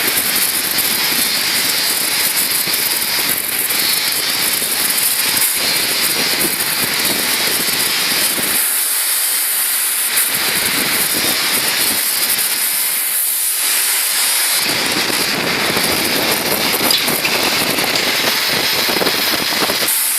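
Oxy-fuel cutting torch of a portable CNC gas cutting machine, hissing steadily with no break.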